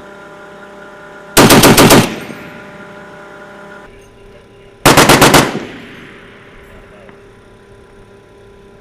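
Two short bursts of automatic gunfire from a machine gun, about three seconds apart, each about half a second of roughly six rapid shots with a brief echo trailing off.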